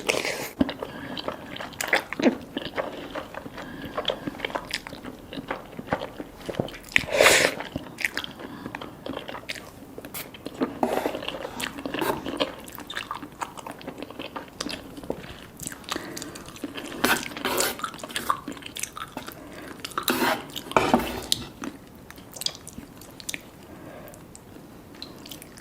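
A person eating: chewing and biting with many wet mouth clicks and smacks, and a few louder bites spread through.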